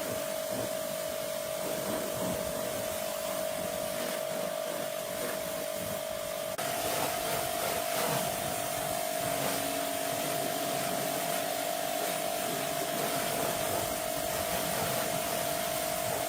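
A small electric motor running steadily with a constant whine over a noisy hiss. The whine steps slightly higher and louder about six and a half seconds in.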